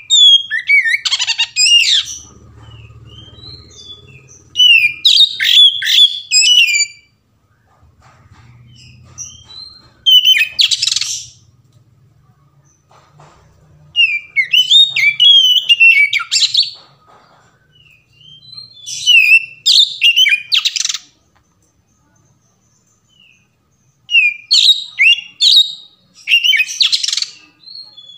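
Oriental magpie-robin (kacer) singing its full, loud song: about six bursts of varied, rapid whistled phrases, each two to three seconds long, with short pauses between them.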